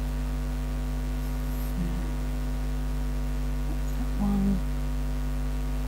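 Steady low electrical mains hum.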